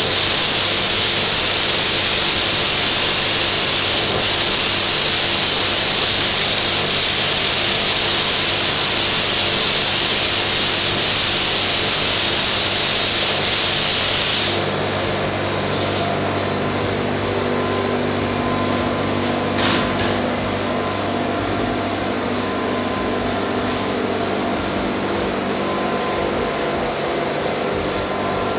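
Compressed-air paint spray gun hissing loudly and steadily as red paint is sprayed onto a car bonnet, stopping abruptly about halfway through. A steady, quieter machine hum carries on afterwards.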